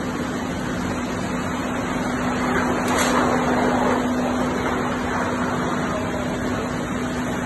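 Muddy floodwater rushing across a factory floor, a steady rushing noise, with a steady low hum underneath.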